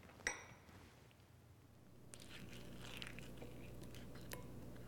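A sharp clink about a third of a second in. Later, soft scraping as a metal spoon scoops diced avocado out of its skin into a glass bowl, with a light clink of the spoon near the end.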